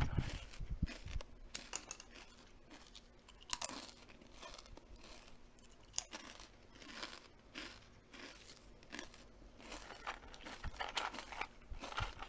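Crunchy chewing: irregular crisp crunches and crackles of food being bitten and chewed, bunching into louder spells now and then.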